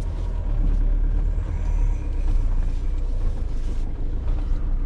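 Van engine and road noise: a steady low rumble.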